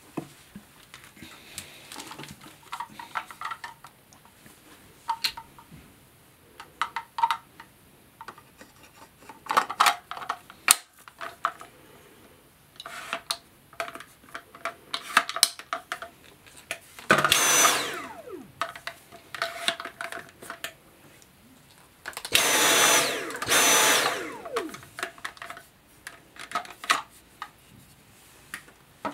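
Dyson V7 cordless handheld vacuum's motor switched on in short bursts, once and then twice in quick succession a few seconds later, its pitch falling as it spins down after each. Between the bursts come sharp plastic clicks and knocks as attachments are handled and fitted.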